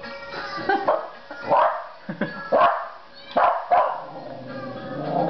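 West Highland white terrier barking repeatedly, about six sharp single barks in a few seconds, in reaction to meowing cats on the TV, with the TV's cat-meow Christmas music underneath.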